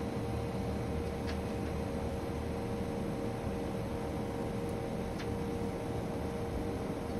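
Daikin outdoor air-conditioning unit running: a steady hum with a constant tone over a low rumble, with two faint ticks.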